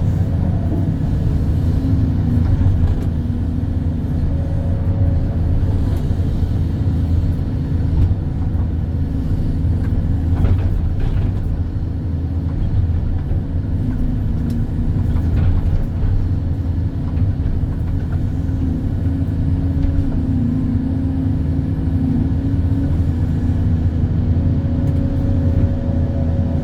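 Excavator's diesel engine running steadily, a low rumble whose pitch shifts slightly now and then.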